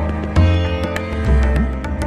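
Instrumental background music: plucked strings ringing over held tones, with deep drum strokes that bend in pitch.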